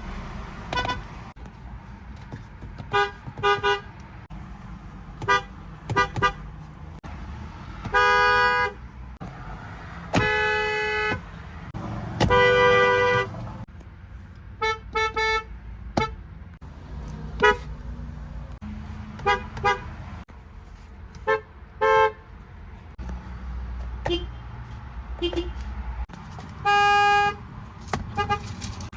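A string of different cars' horns honking one after another, each at its own pitch. Most are quick single or double taps, and a few are held for about a second.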